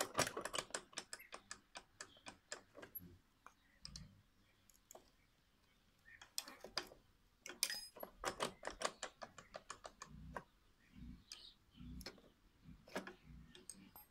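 Rapid metallic clicking and tapping from a walk-behind tractor's sickle-bar mower cutter bar being worked by hand, in two bursts of a few seconds with a short pause between, followed by a few scattered dull knocks.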